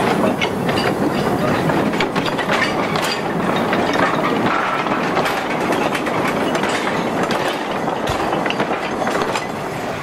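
Narrow-gauge freight wagons rolling past close by, their wheels clattering and knocking over the rail joints, easing off slightly near the end as the last wagon goes by.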